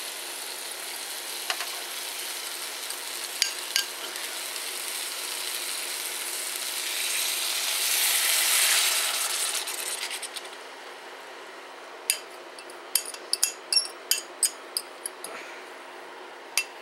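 Chicken and vegetables sizzling in a stainless steel wok on an induction cooktop. The sizzle swells about seven seconds in as the sauce is poured into the hot wok, then drops off. In the last few seconds, a run of sharp clicks as a fork scrapes the remaining sauce out of a bowl.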